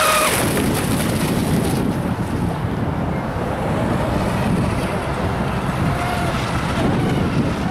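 A radio-controlled speedboat's high motor whine, loud and close, cuts off about a third of a second in. After that, wind buffets the microphone, with the boat's whine faint in the distance.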